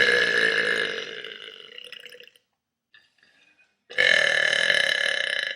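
Two long, loud burps from a person. The first is already under way at the start and fades out over about two seconds; the second starts about four seconds in and is still going at the end.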